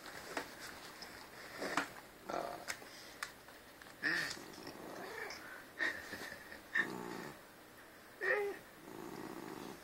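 White domestic cat 'talking': a string of short, quiet vocal sounds, about eight of them, spaced a second or so apart.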